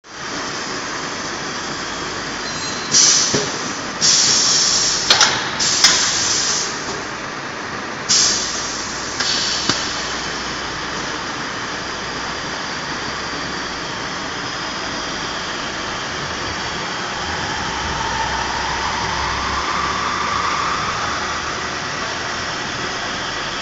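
Automatic transformer corrugated-fin welding machine running with a steady mechanical drone. Several loud hissing blasts and two sharp clicks come between about three and ten seconds in. A faint whine rises and falls near the end.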